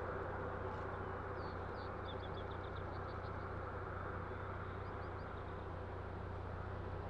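Steady outdoor rushing noise with a low hum beneath it, and a quick run of short, high chirps about two seconds in, followed by a few more around five seconds.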